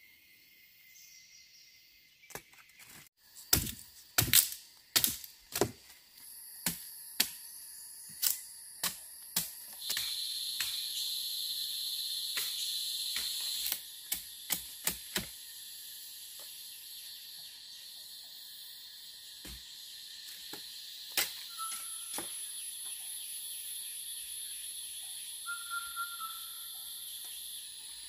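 Knife blade striking and cutting into a wooden pole: a run of sharp, irregular knocks, a few a second at first and thinning out about halfway through. A steady high drone of forest insects runs underneath.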